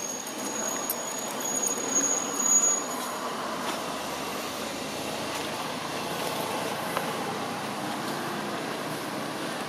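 Steady outdoor background noise: an even rush with no distinct events, a little louder and more uneven in the first few seconds.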